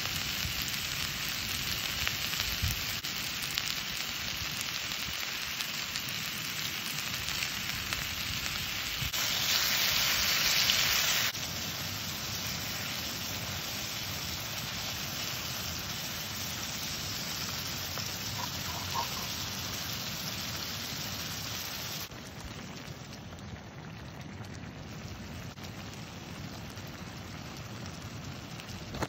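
Steady sizzling of chicken and vegetables cooking in a small cast-iron skillet over a gas canister stove. It grows louder for a couple of seconds about a third of the way in and drops quieter for the last quarter.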